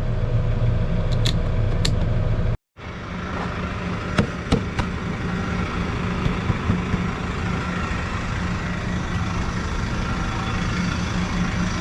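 Case 120 tractor's diesel engine idling steadily, running again after a dead battery caused by the lights being left on. The sound cuts out for a moment early on, and a few sharp clicks come about four seconds in.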